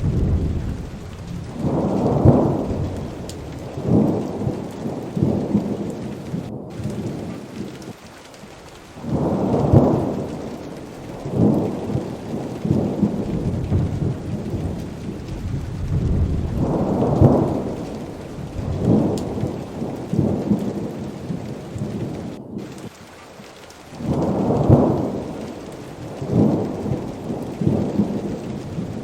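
Heavy rain pouring steadily, with repeated rolling rumbles of thunder swelling and fading every few seconds.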